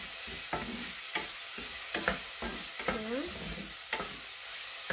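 Sliced pork frying with onion, garlic and ginger in a stainless steel pan, sizzling steadily while a wooden spatula stirs it, scraping and knocking against the pan about twice a second.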